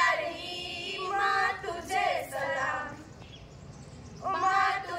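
A group of girls' voices singing in unison, held notes with short breaks, pausing for about a second near the end before coming in again.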